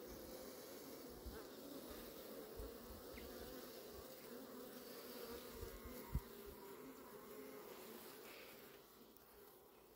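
Faint, steady buzzing hum of a honeybee colony on a brood frame lifted out of a nucleus hive, with a brief low thump about six seconds in. The hum drops off shortly before the end.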